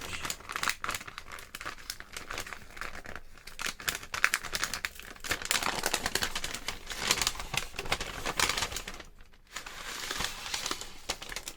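Kit packaging being opened by hand: continuous crinkling and rustling with small tearing sounds, pausing briefly about nine seconds in before starting again.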